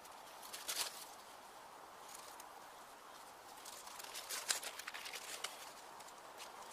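Footsteps and hands crunching and rustling in dry fallen leaves: a short crackle about a second in, then a longer run of crackles between about four and five and a half seconds in.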